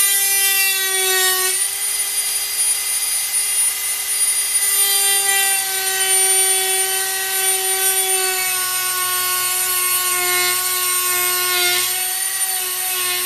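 Dremel rotary tool with a diamond cutting wheel running at high speed, a steady whine, as it cuts through a small reinforcing-sleeve tube. Its pitch sags slightly now and then as the wheel bites.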